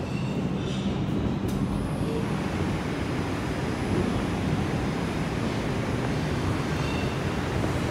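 Steady rumble and noise of an R142 subway car running through the tunnel, heard from inside the car.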